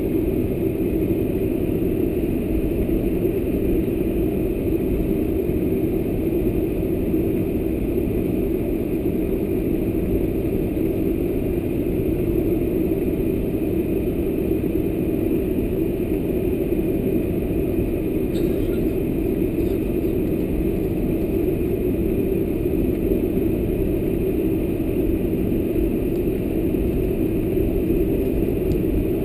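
Boeing 747-400 cabin noise while taxiing: a steady hum of the jet engines at low taxi thrust, mixed with the cabin air system, heard from inside the cabin.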